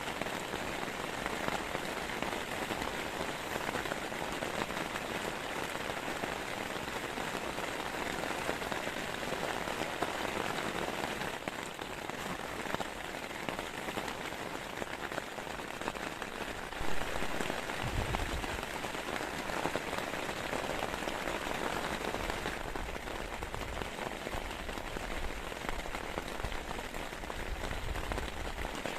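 Heavy rain falling steadily, a dense even patter of drops, with a brief louder knock about 17 seconds in and low rumbles later on.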